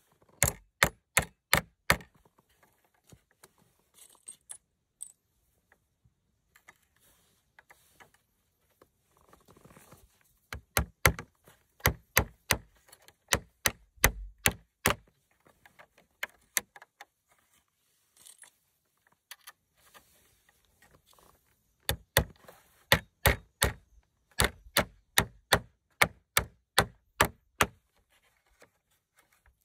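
Hand-tool blows on wood while a wooden door is built: runs of sharp knocks, about two or three a second, three times over with pauses between.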